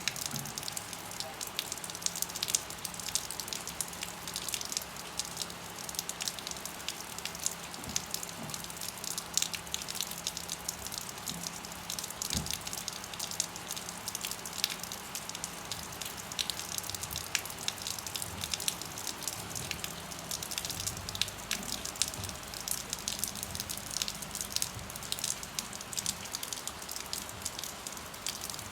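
Rain falling steadily, a dense, irregular run of small drop ticks over an even hiss.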